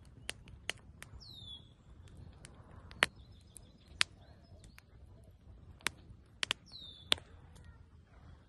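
Wood campfire crackling, with about nine sharp pops, the loudest two around three and four seconds in. A bird gives two short, falling chirps, one early and one near the end.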